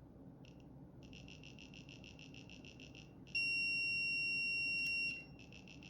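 Multimeter continuity beeper chattering in rapid beeps, about six a second, then sounding one steady high tone for about two seconds, then chattering again. This is the meter wavering at the threshold between reading continuity and not, which the owner puts down to how the tester behaves rather than to a fault in the knee speed controller.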